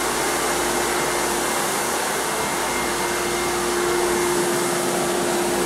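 Floor buffer and backpack vacuum running together while buffing a hardwood floor for a recoat: a steady motor whir with one constant hum in it.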